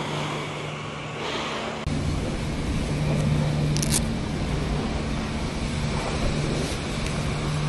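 A steady engine hum with a low, even drone that grows louder about two seconds in. A brief high rasp comes near four seconds, as a riding glove is put on.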